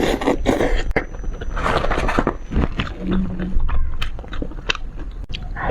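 Close-miked eating sounds: a person chewing fish, with wet mouth clicks and short noisy bursts at irregular intervals.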